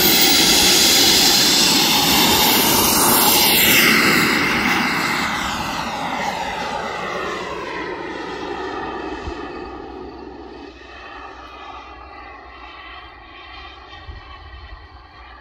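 Kingtech K142 G4+ turbine of a model jet running at takeoff power as the jet rolls and climbs away. It is loudest in the first four seconds, drops in pitch about three seconds in, then fades steadily.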